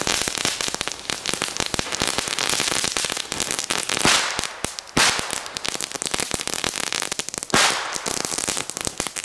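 Small ground fireworks burning on grass, crackling with a dense run of rapid pops, with louder bangs about four, five and seven and a half seconds in.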